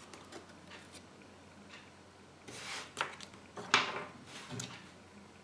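Small plastic toy parts and a wrapper handled on a wooden tabletop: a short rustle about two and a half seconds in, then a few sharp clicks and taps, the loudest nearly four seconds in.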